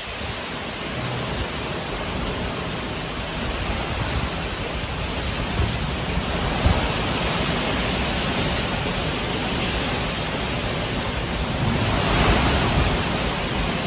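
Straight-line storm winds of over 70 mph rushing through trees, a loud steady rushing noise with wind gusting on the microphone, swelling near the end.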